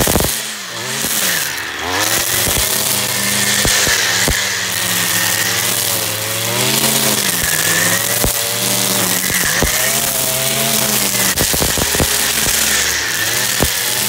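Stihl two-stroke string trimmer running at cutting speed through thick grass, its engine pitch rising and falling as the throttle is worked, with scattered sharp ticks from the spinning line.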